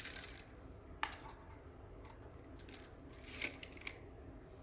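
A few light clicks and taps and a brief rustle as the small PVC statue and its packaging are handled.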